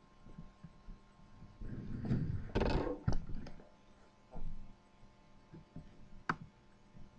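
A sleeping man snoring: a low snore builds about two seconds in and ends in a loud, noisy breath, followed by quieter breathing. A sharp click sounds near the end.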